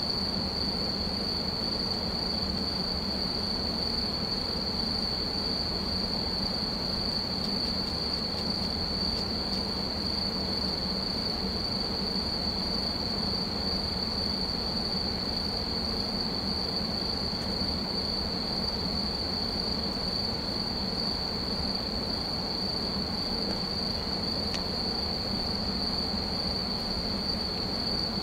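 Cooling blowers of an EF64 electric locomotive running steadily at speed while it stands: an even hum with a constant high-pitched whine.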